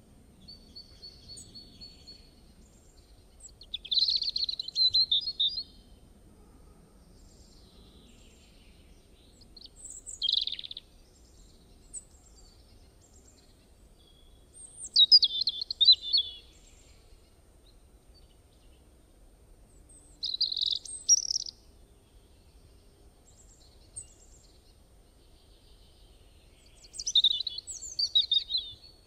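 A small bird singing: five loud phrases of quick chirps, each a second or two long and about five or six seconds apart, over a faint low rumble.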